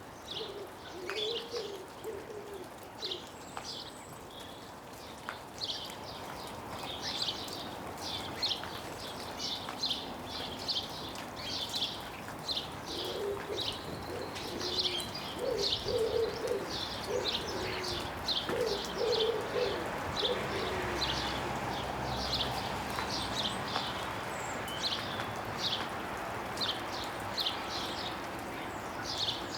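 Small garden birds chirping in quick, repeated short notes close to the microphone. Low cooing joins at the start and again through the middle. Meltwater drips from snow-laden branches.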